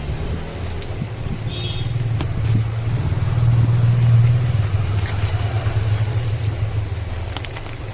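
An engine running with a steady low hum, growing louder about halfway through and easing off toward the end.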